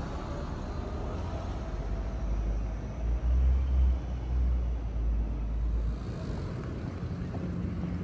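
Outdoor city-square ambience of distant road traffic, with a deep low rumble that swells about three seconds in and fades about six seconds in.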